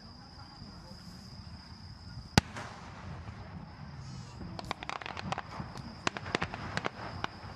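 Fireworks: one loud sharp burst about two and a half seconds in, then a rapid run of crackling pops from about halfway through until near the end.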